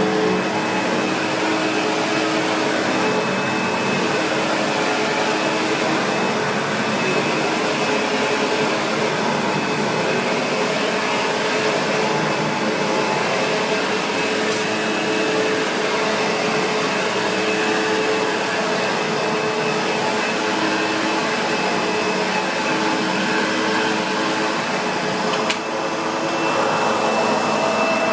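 SEBO X4 Extra upright vacuum cleaner running steadily as it is pushed over carpet, a constant motor noise with a thin high whine. One short click sounds near the end.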